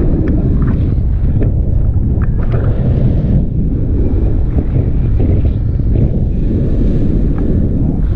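Airflow from a tandem paraglider's flight buffeting a selfie-stick camera's microphone: a loud, steady, low rumbling wind noise with a few light clicks scattered through it.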